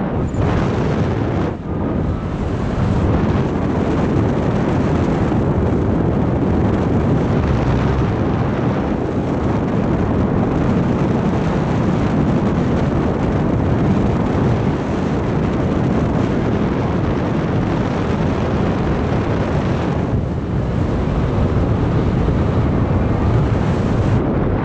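Steady, loud wind noise from airflow buffeting an action camera's microphone during paragliding flight, with a brief lull about a second and a half in.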